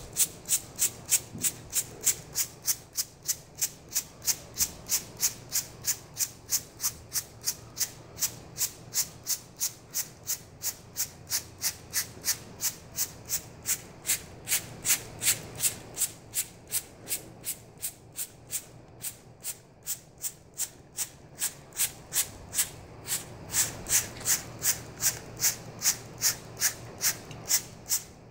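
Plastic trigger spray bottle pumped over and over, about three squirts a second, each a short hiss of water spray.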